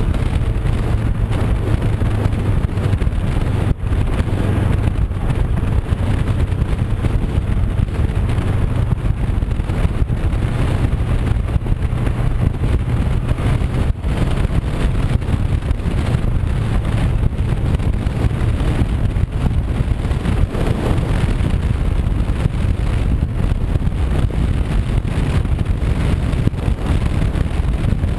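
Honda CB500X's parallel-twin engine running steadily while the motorcycle cruises at road speed, under heavy wind rush on the microphone.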